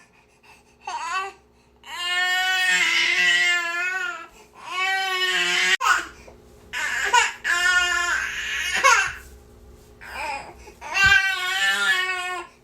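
Infant crying: about seven wavering, high-pitched wails of varying length, with short catches of breath between them.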